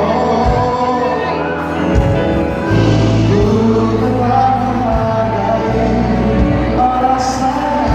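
Live pop band playing with singing over it, a steady beat and strong bass.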